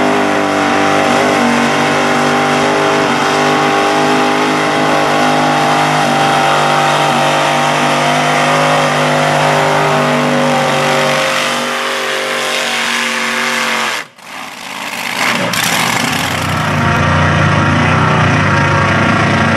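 Mud bog truck engine held at high revs, then its pitch slides down as it backs off about thirteen seconds in. The sound breaks off suddenly about fourteen seconds in, and an engine then runs at lower revs.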